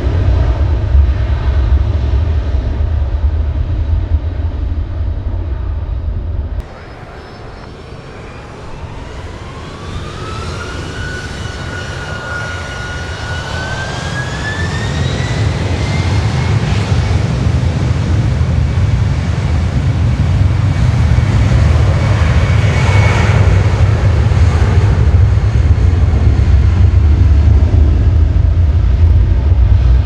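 Jet airliner engines at high thrust, a loud low rumble that breaks off abruptly after a few seconds. Then engines spooling up with a whine that rises, levels briefly and climbs again before holding steady, while the rumble builds to a loud, steady takeoff roar.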